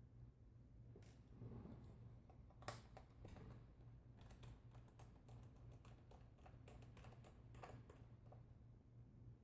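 Faint, irregular clicking and tapping of a screwdriver and small screws being worked out of a laptop's bottom cover, with one sharper click about a third of the way in.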